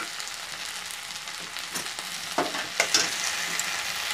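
Vegetables sizzling in oil and sauces in a metal kadai. About halfway through, a steel spatula starts stirring, with scraping and a few sharp knocks against the pan.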